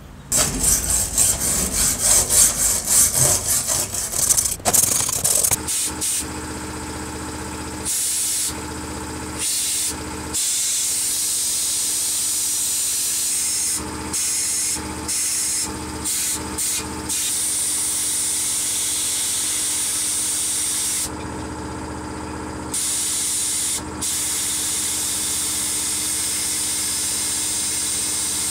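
About five seconds of rapid rubbing or scrubbing strokes, then a sandblasting cabinet's blast gun hissing in bursts as it is triggered on and off, with short and longer pauses, over a steady machine hum.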